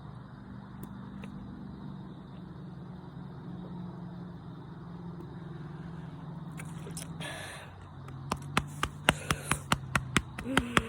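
Gulping while chugging sparkling water: a fast run of sharp throat clicks, about four a second, in the last three seconds. Before it, a steady low hum for about seven seconds.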